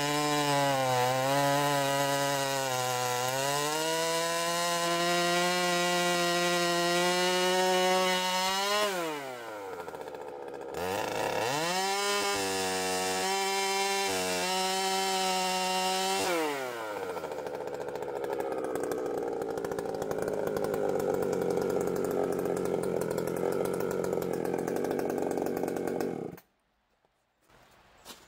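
Piped Holzfforma G395xp 95cc two-stroke chainsaw with a 36-inch bar and .404 chain, cutting a large log at high revs under heavy load. The engine note sags in the first few seconds and drops away twice, picking back up after the first. After that it turns rougher and less clearly pitched, then stops suddenly near the end.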